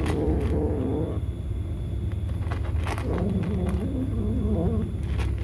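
Kitten crunching dry kibble, with sharp crunches scattered throughout. Over the crunching it makes low, wavering murmuring vocal sounds while eating: one in the first second, and again from about three seconds in.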